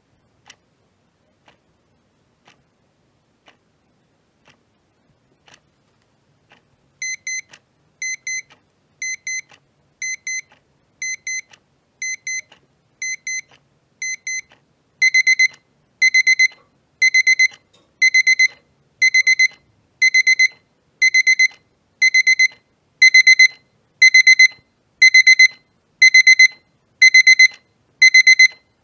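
Electric kitchen timer: faint ticking about once a second, then its alarm goes off in high, rapid beeps grouped about once a second. About halfway through, the beeping steps up louder with longer bursts.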